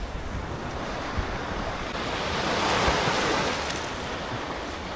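Sea waves washing in, with wind buffeting the microphone; the wash swells to its loudest a little past halfway and then eases.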